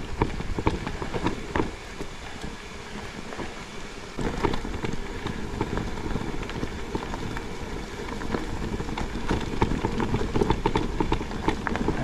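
An electric mountain bike riding down a dirt trail: tyres crunching over gravel and roots with rattling knocks from the bike, over a steady rumble. It quietens briefly for a couple of seconds and then picks up again.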